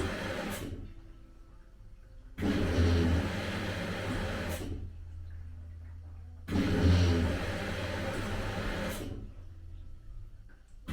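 Samsung VRT inverter washing machine's direct-drive drum motor running in bursts of about two seconds that start abruptly roughly every four seconds and fade away, with a short tick as each burst ends and quiet gaps between. This is the motor noise that goes with the machine's 3E motor error.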